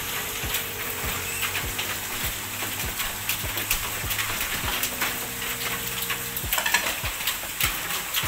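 Fish in a thin tempoyak sauce sizzling and bubbling in a wok over a gas flame, with a metal spatula scraping and clicking against the wok as it is stirred. The stirring gets busier about six and a half seconds in. A faint steady hum runs underneath.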